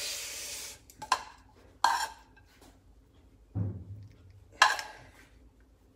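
A frying pan and metal utensils knocking and clanking against a gas stovetop and pans: four or so sharp knocks spaced over a few seconds, after a brief hiss at the start.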